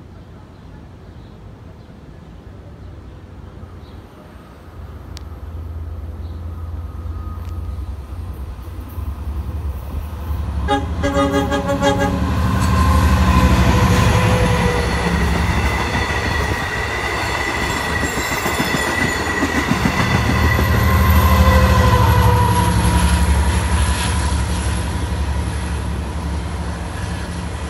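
Long Island Rail Road locomotive-hauled train of bi-level coaches approaching and running past: a low rumble builds, a short horn sounds about eleven seconds in, then loud wheel-and-rail rumble with steady whining tones. The rumble swells a second time about three quarters of the way through as another such train comes on.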